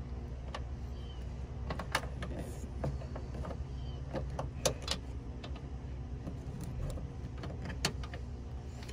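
Scattered light clicks and taps of hand work around a truck's battery terminal and its plastic cover, over a steady low hum.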